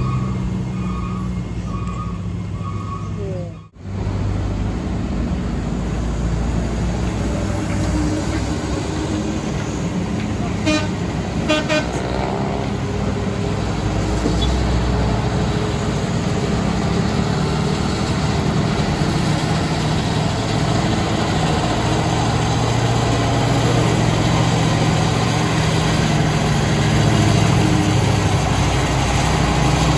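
Heavy diesel trucks labouring up a steep hairpin climb, the engine rumble building near the end as a loaded truck comes close. Short horn toots sound in between.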